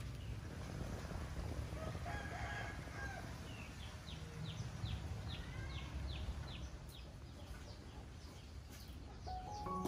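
A rooster crowing about two seconds in, followed by a repeated short falling chirp about three times a second. Music begins near the end.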